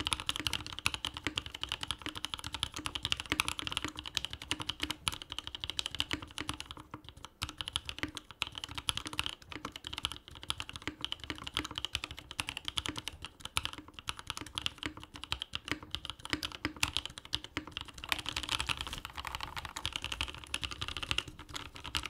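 Continuous fast typing on an Omnitype Bauer R1 mechanical keyboard fitted with Novelkeys Cream linear switches, many key strokes a second with a few short pauses.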